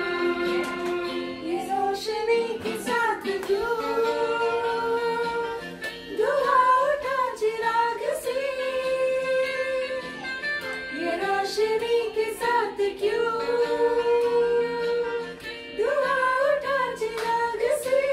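A girl singing into a handheld microphone, holding long notes that bend and glide in pitch, over instrumental accompaniment.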